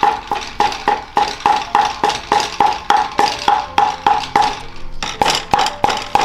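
Cleaver chopping meat into mince on a round wooden chopping block: steady, even strikes about three a second, each with a short ringing note.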